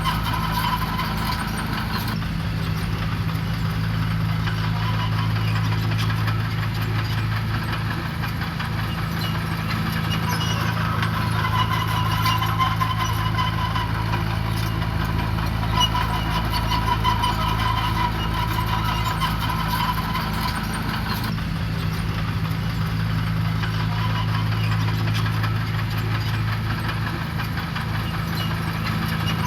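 Diesel engine of heavy earthmoving machinery running steadily, with a slight shift in its note about two seconds in and again around twenty seconds in. A faint high tone comes and goes over the engine.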